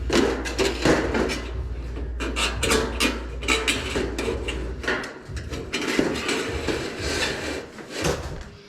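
Steel studs and track being handled and fitted: a dense run of metallic knocks, clanks and rattles.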